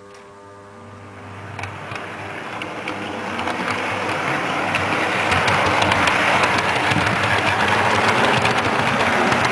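Model Virgin Voyager train running along the track, its motor and wheels growing louder as it approaches and passes close by, with light clicks.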